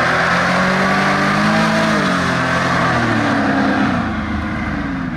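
Hovercraft engine running under power with the rush of its fan; the engine note drops about two seconds in and again near four seconds as it eases off.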